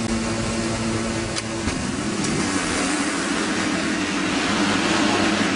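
A full gate of 250cc four-stroke motocross bikes held at steady high revs, then the gate drops about a second and a half in and the engines rev up together as the pack launches and accelerates away, getting louder.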